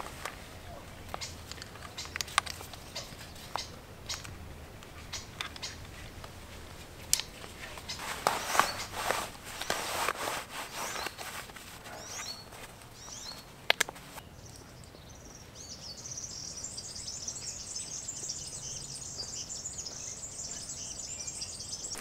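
Handling noise of camera gear and clothing: scattered clicks and rustles, thickest about eight to eleven seconds in. From about fifteen seconds in, dense high-pitched bird chirping fills the rest.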